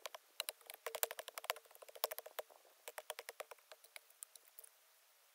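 Garden hoe working loose soil: a run of small, irregular clicks and ticks as the blade scrapes and chops through the earth.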